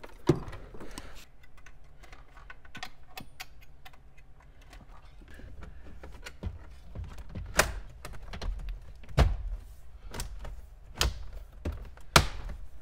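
A crimping tool clicks shut on a wire connector at the start. Then come scattered clicks and knocks of wiring and plastic trim being handled in a 2014 Honda Civic's dashboard, with four sharp snaps in the second half as the dash trim panel is pressed home and its clips snap into place.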